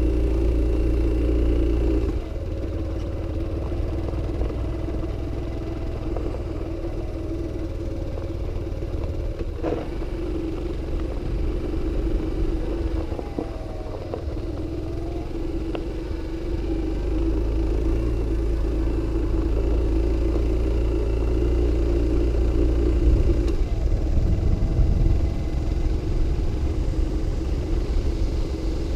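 Vehicle engine running at a steady pace while driving on gravel, heard from a camera mounted on the vehicle, over a constant low rumble of wind and tyres. The engine note wavers a little now and then and gets rougher and louder for a few seconds near the end.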